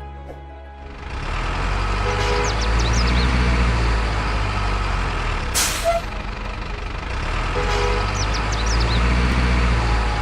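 A truck engine running, starting up about a second in, with a short sharp hiss about five and a half seconds in.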